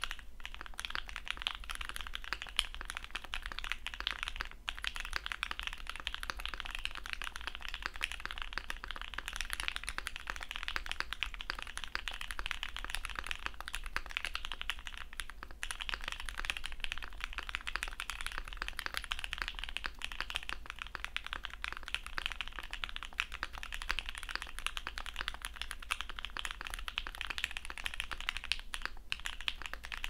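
Fast, continuous typing on an ai03 Polaris 60% mechanical keyboard with C3 Tangerine linear switches: a dense run of keystroke clacks, with brief breaks about four and a half seconds in and again around fifteen seconds.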